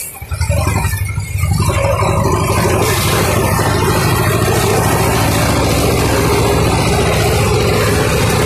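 T-25 tractor's two-cylinder air-cooled diesel engine running steadily under the load of mowing. The sound dips briefly at the start and is back to full strength by about a second and a half in.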